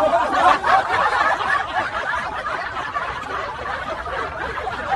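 People laughing and chuckling at a joke, several voices overlapping.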